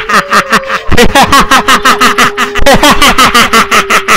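A man's voice doing a ghost's menacing laugh: fast, even 'ha-ha-ha' pulses, about seven a second, with a steady low note held underneath from about a second in.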